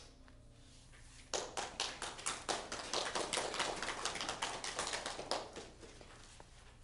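A small audience applauding a solo lute performance, the claps starting suddenly about a second in and thinning out after about four seconds.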